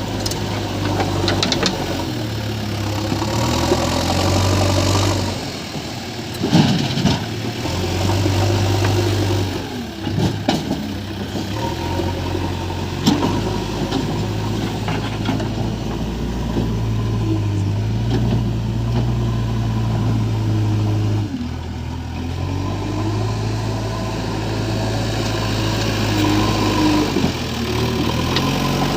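Diesel engine of a JCB 3DX backhoe loader running and revving up and down under working load, with a few sharp knocks along the way.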